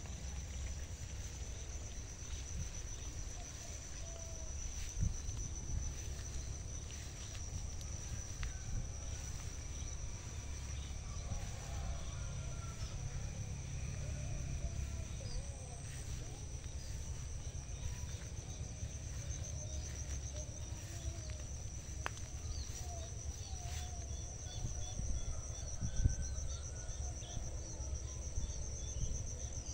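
An insect trilling steadily at a high pitch, with scattered short bird chirps over it and a low rumble underneath.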